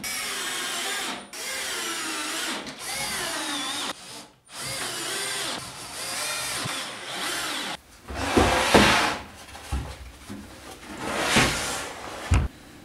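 Cordless drill-driver driving screws into pine bracing: several runs of motor whine a second to three seconds long, the pitch wavering as each screw bites and seats. In the last five seconds, irregular wooden knocks and scrapes as the screwed-together frame is handled, with a sharp thump near the end.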